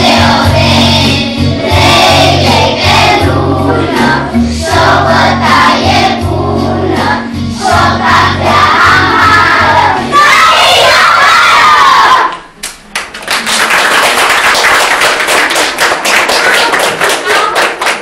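A pop-style song with a heavy-bass backing track and a group of children singing along; it ends abruptly about twelve seconds in. Audience applause follows.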